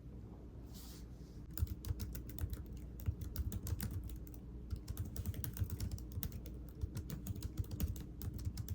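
Typing on a computer keyboard: quick, irregular key clicks that start about one and a half seconds in.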